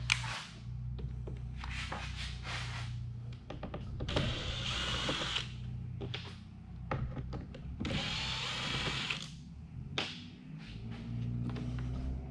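Cordless drill running in short spurts, twice for about a second each (about four and eight seconds in), backing screws out of the plastic HVAC heater box, with light plastic clicks and handling in between.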